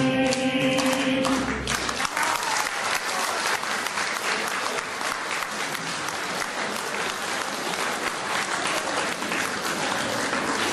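A choir's last held chord dies away about two seconds in, followed by audience applause.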